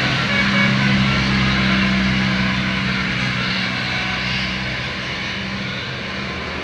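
Large diesel vehicle passing with a steady engine drone and road noise, loudest about half a second in and fading gradually as it moves off.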